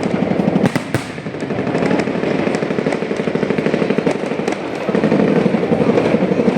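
Fireworks going off in a rapid, continuous crackling barrage, with a few sharper bangs about a second in.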